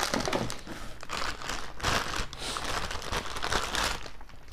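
Clear plastic bag crinkling in irregular bursts as a spinning fishing reel is unwrapped from it.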